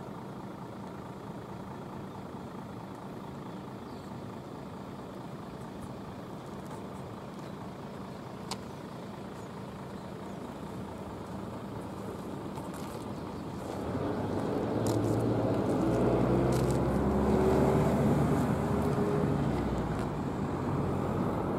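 Steady outdoor background noise with a faint low hum. About two-thirds of the way through, a motor engine grows louder and keeps running, with steady low tones and a slowly sliding higher tone.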